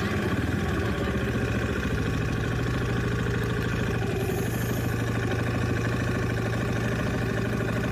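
Motorcycle engine idling steadily at an even pitch, then cutting off abruptly at the very end.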